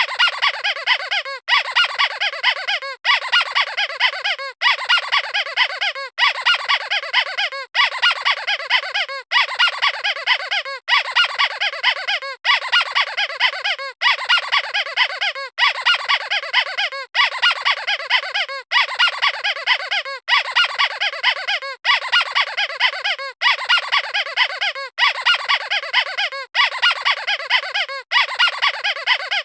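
Squeaky squeeze toy squeaked in quick high squeaks. The squeaks come in rounds of about a second and a half, each round ending in a brief break, over and over.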